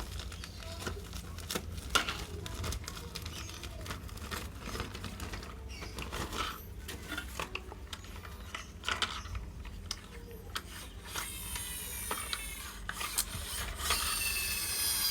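Plastic toy construction vehicle being handled, its moving parts clicking and ratcheting with many sharp clicks. Short rising whirrs come in near the end.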